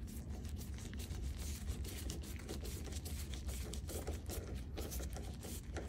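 Hand screwdriver driving a screw into a door latch faceplate: small irregular clicks and scrapes of the bit turning in the screw head, over a low steady hum.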